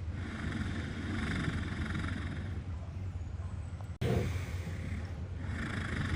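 Sleeping walrus snoring: long, slow, noisy breaths about four seconds apart, with a short low snort about four seconds in.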